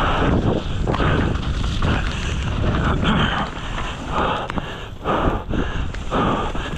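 Mountain bike on a rough trail, with heavy wind noise on the microphone: a steady low rumble and irregular surges of noise about once a second.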